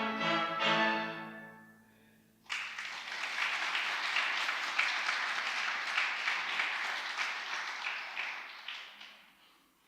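An orchestra's final chord dying away, then an audience breaking into applause about two and a half seconds in; the clapping goes on for about seven seconds and fades out near the end.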